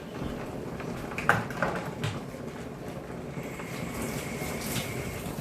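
Cooking pot and lid being handled on the stove: a few sharp knocks and clatter, then a steady hiss with a thin high whistle over the last couple of seconds.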